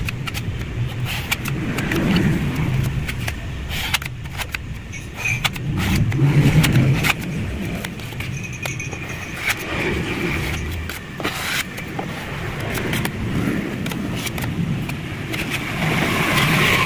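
Sandpaper on a hand block rubbed over body filler on a truck's steel cab door: irregular scratching strokes, with the panel giving a low rumble on the heavier strokes.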